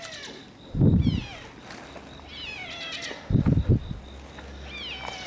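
Red tabby cat giving its gruff 'fugyaa' cry twice: a short call about a second in, and a longer one broken into several pulses around three and a half seconds in.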